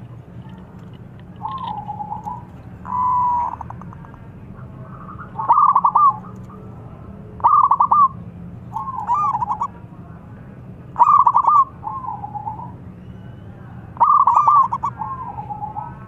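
Zebra dove (perkutut) cooing its calling song: short rolling coo phrases about every one to two seconds, alternating louder and softer, over a steady low hum.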